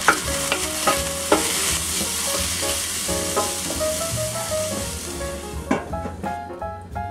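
Diced sweet potato and bell pepper sizzling in olive oil in a stainless steel sauté pan while a wooden spoon stirs them, with a few sharp knocks of the spoon against the pan. The sizzle stops suddenly near the end, leaving light background music.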